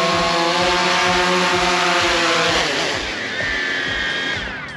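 DJI Phantom 3 Pro quadcopter's four propeller motors humming steadily as it comes in to land. About two and a half seconds in the hum changes and shifts higher, and near the end the motors spin down with a falling whine as the drone is landed.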